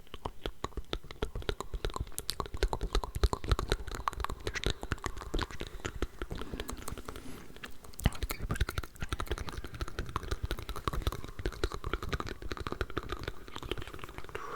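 Layered close-microphone ASMR mouth sounds: a dense, rapid stream of wet mouth clicks and smacks, with soft whispering mixed in underneath.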